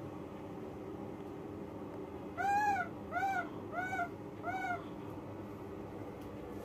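Baby macaque giving four short coo calls, each rising then falling in pitch, about one and a half a second.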